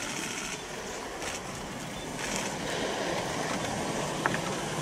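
Steady rushing noise of the fire at the exploded Epsilon S solid rocket motor's test stand, with one short click about four seconds in.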